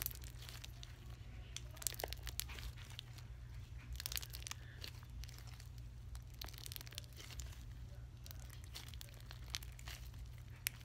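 Bead-filled slime being squeezed and stretched in the hands, giving irregular small crackles and clicks over a steady low hum.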